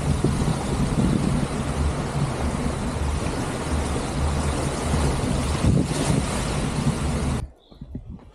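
Loud, steady wind rumble on the action camera's microphone while cycling along the beach, with surf mixed in. It cuts off abruptly near the end, leaving a quiet stretch with faint steps.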